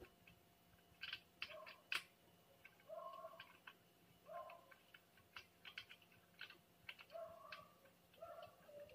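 Faint clicks and taps of a bolt and hand tool working into a white steel table-leg frame, with several short, high, slightly gliding squeaks scattered among them.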